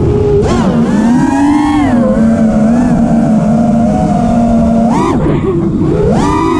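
The four brushless motors of an FPV freestyle quadcopter, Brotherhobby T1 2205s spinning Ethix P3 propellers, whining under changing throttle. The pitch rises about half a second in and holds fairly steady, then climbs and drops quickly twice near the end as the pilot punches and cuts the throttle.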